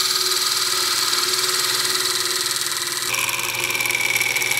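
Thin parting tool cutting through a spinning wooden spindle on a wood lathe, a steady high-pitched hiss. About three seconds in a high whistling tone joins as the last of the wood is cut, then the cut stops abruptly as the piece parts off.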